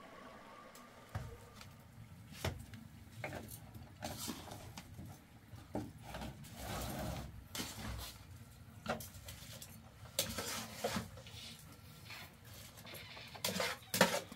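Irregular knocks and clatters of objects being handled, a few every second, with the loudest cluster near the end.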